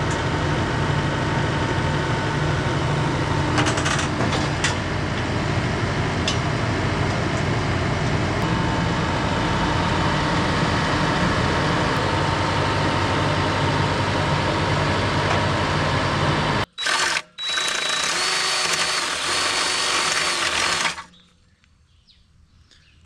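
A motor running steadily with a low rhythmic drone, cut off suddenly; after the cut a power tool whirs for about four seconds, then it goes nearly quiet.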